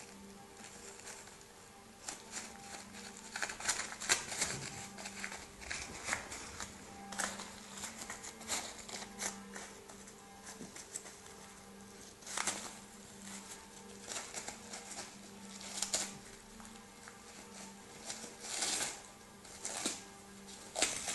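A miniature pinscher tearing and crinkling gift wrapping paper, in irregular bursts of rustling and ripping, over a faint steady low hum.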